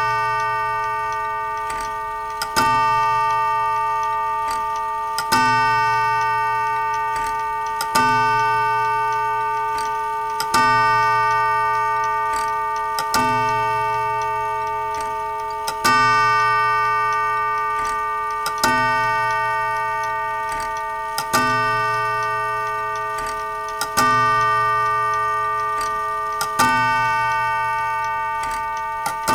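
Clock striking twelve: a single struck stroke about every two and a half seconds, each ringing on with a slowly fading tone that carries into the next. A faint click comes just before each stroke.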